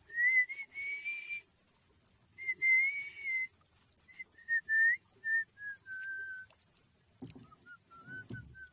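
A man whistling a tune through pursed lips. It comes in several phrases of a single clear note with pauses between, the melody drifting lower in pitch. Near the end there are a few low knocks and rustles.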